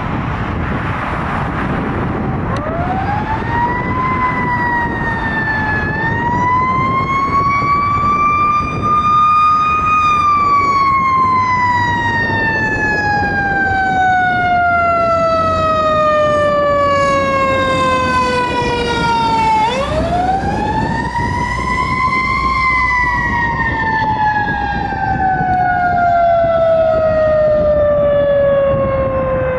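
Fire engine siren wailing. Its pitch winds up about two seconds in and climbs again, glides slowly down for about ten seconds, jumps back up sharply just before the twenty-second mark and glides down once more. A steady rumble of engine and road noise runs beneath it.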